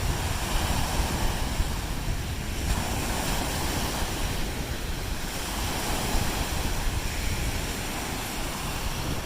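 Lake Erie waves washing onto the beach, the surf swelling and easing every couple of seconds, with wind rumbling on the microphone.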